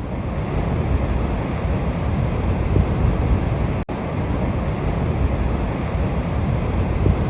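Niagara Falls' steady roar of falling water, heaviest in the low end, with a momentary dropout about four seconds in where one clip cuts to the next.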